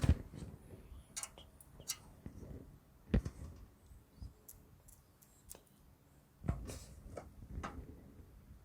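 Screws being driven with a screwdriver to mount a hard drive in a metal PC case: scattered small metal clicks and ticks, with heavier knocks near the start, about three seconds in and about six and a half seconds in.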